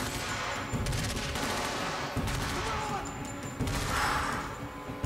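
Rapid, repeated gunfire on the soundtrack of a TV drama's firefight scene, shots following closely one after another.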